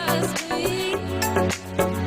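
Background music with a steady beat and a wavering melody line, in the style of a Bollywood song.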